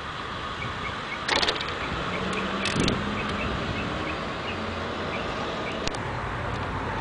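Steady outdoor vehicle and traffic noise with a low engine hum in the middle, a few sharp clacks, and a run of small repeated high chirps, about three a second, in the first half.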